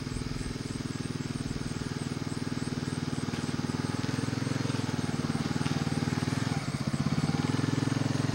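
Four-wheeler ATV engine running at a steady pace as the quad rides toward the camera, slowly getting louder, with a brief dip in level about six and a half seconds in.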